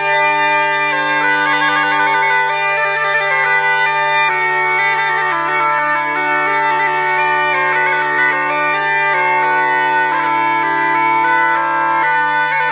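Scordino, a Sicilian zampogna bagpipe, playing a melody. Quick ornamented notes and trills on one chanter run over a note held steady throughout.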